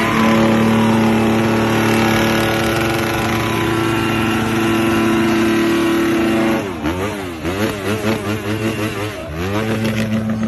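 Husqvarna enduro motorcycle engine held at high revs in a burnout for about six seconds, then blipped up and down on the throttle several times before settling near the end.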